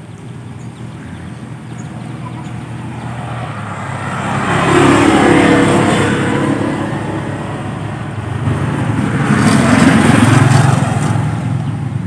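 Two motor vehicles passing by one after the other. Each engine rises to a peak and fades away, the first about five seconds in and the second near ten seconds.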